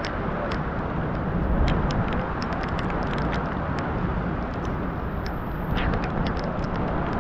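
Steady rushing wind and vehicle noise in a severe storm, with many scattered sharp ticks throughout.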